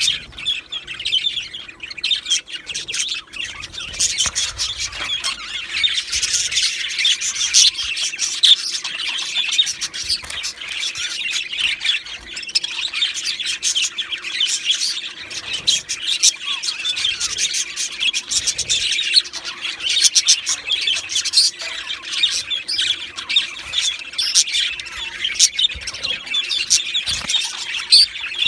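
Male budgerigars chattering and warbling, a continuous run of quick chirps, squawks and raspy notes with no pauses.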